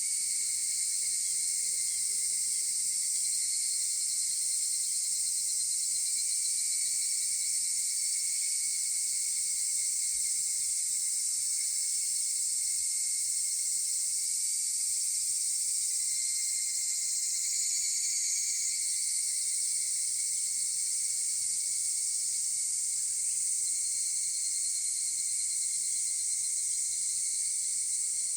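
Chorus of higurashi (evening cicadas, Tanna japonensis) singing continuously, a dense steady high-pitched ringing with fainter overlapping trills from individual insects.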